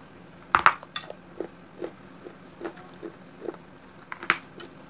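Mouth crunching on hard fired clay from a gulak: a sharp cracking bite about half a second in and another near the end, with softer chewing crunches about every half second in between.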